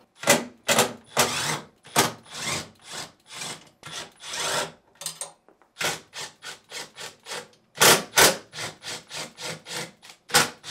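A 3/8-inch nut driver backing out the screws that hold a refrigerator's freezer door, heard as a run of short rasping strokes. The strokes get shorter and quicker about halfway through.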